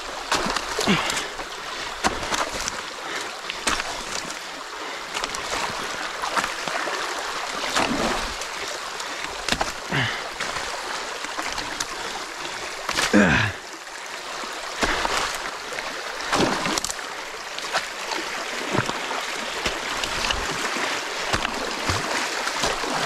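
Creek water rushing steadily through a breach in a beaver dam, with scattered splashes as dam material is pulled out by hand; one louder splash comes just past the middle.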